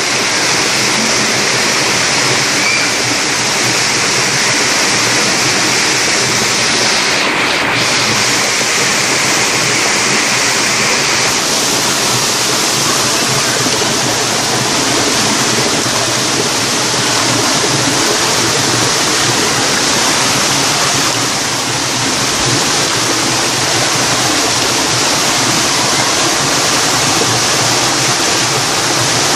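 Water pouring down the cascades of Erawan Waterfall, a steady, unbroken rush.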